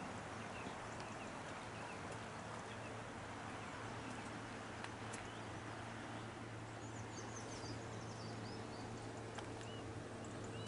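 Outdoor ambience of a steady rush of flowing river water, with small birds giving short high chirps, more of them in the second half.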